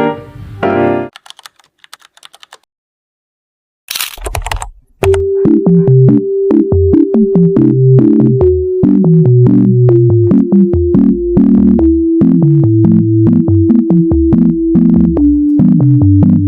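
Background music: piano notes end about a second in, then a short silence and a brief noisy swish near four seconds. After that an electronic track starts, with a held tone, a stepping bass line and crisp clicking percussion that sounds like typing.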